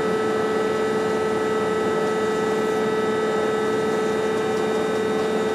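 Steady machine hum with a constant whine, unchanging in level or pitch, from powered shop machinery.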